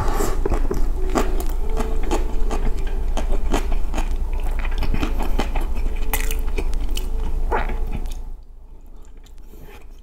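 Chewing a mouthful of rice eaten by hand: a dense run of wet mouth clicks and smacks that dies down a little past eight seconds in.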